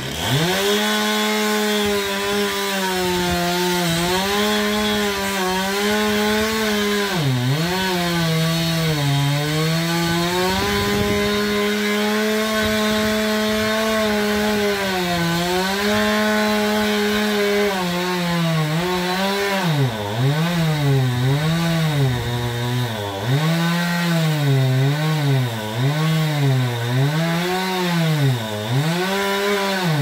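Gas chainsaw throttled up from idle and cutting wood, its engine pitch dipping as it bogs in the cut. In the second half the note rises and falls about once a second.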